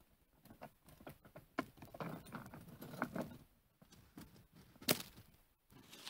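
Handling sounds as a dead pine marten is taken out of a conibear body-gripping trap: scattered clicks, rustling and light metal jangling, with a burst of rustling about two seconds in and a single sharp click about five seconds in.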